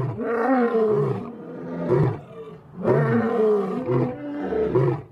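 A male lion roaring: a series of long, deep calls with short low grunts between them.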